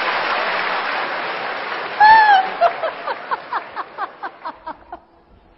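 Theatre audience applause fading over the first couple of seconds, while a woman laughs loudly on stage: one long drawn-out laugh about two seconds in, then a run of short 'ha's that die away.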